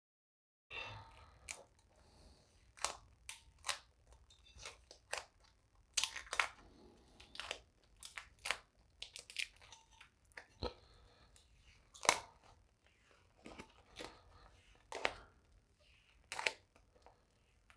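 Adhesive vinyl wrap film (3M 1080 satin dark grey) being peeled off a metal grille bar: irregular crackles, snaps and crinkles as the stuck film pulls free and the loose sheet crumples.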